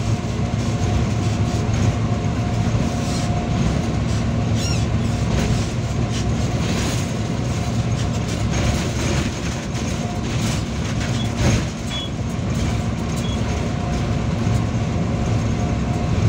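Heard from inside the cab, a GE diesel-electric locomotive running at speed: a steady, loud drone of engine and wheels on rail, with a faint steady whine and occasional clacks from the track.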